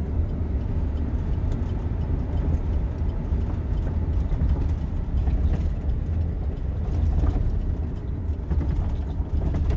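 Sinotruk heavy truck's diesel engine and running gear heard from inside the cab while driving in gear: a steady low drone at an even level.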